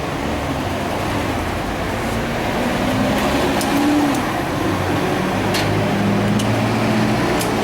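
Steady mechanical hum of a running machine, with a few short light clicks about halfway through and near the end.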